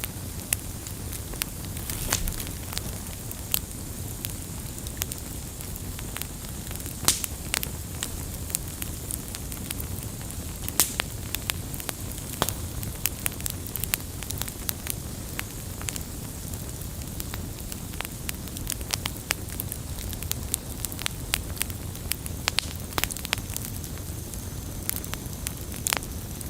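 Wood fire crackling: a steady low rumble of burning logs with frequent irregular sharp pops and snaps, a few of them markedly louder.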